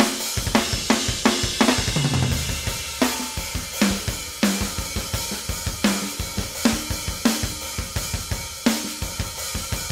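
EZdrummer 3 virtual drum kit playing a steady rock beat of kick, snare and cymbals, with the snare swapped between sampled snares (a Tama Bell Brass low-tuned, then a Gretsch Bell Brass) while the pattern keeps running.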